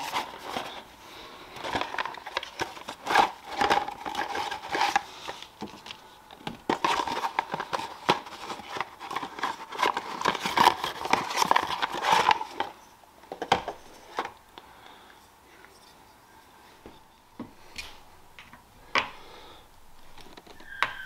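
Cardboard box and plastic packaging being handled and opened, with dense crinkling and rustling for about the first twelve seconds. After that, sparse clicks and taps of small parts being handled.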